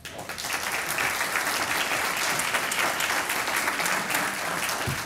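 An audience applauding: many people clapping together steadily, fading a little near the end.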